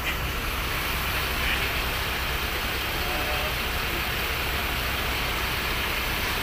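A vehicle engine running steadily, heard as a constant low rumble under an even traffic hiss, with no sudden events.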